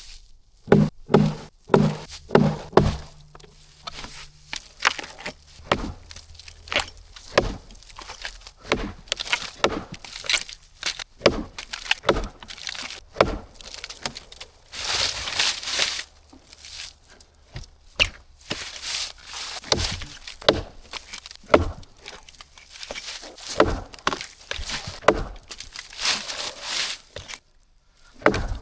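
Firewood being cut and broken from fallen trees: a run of irregular sharp wooden chops and cracks, quick at first, with rustling of branches and brush between them.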